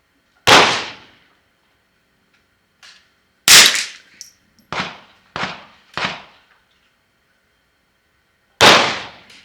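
Three single .22 rimfire rifle shots from a Ruger 10/22-action semi-auto firing Eley .22 LR, each sharp and dying away within about half a second, spaced a few seconds apart: the final three shots on the target. Between the second and third come three quieter shots in quick succession, about half a second apart.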